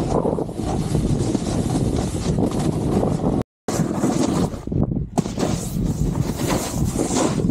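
Wind rushing over the microphone and a snowboard sliding and scraping over snow while riding downhill at speed. The sound cuts out for a moment about three and a half seconds in, then carries on.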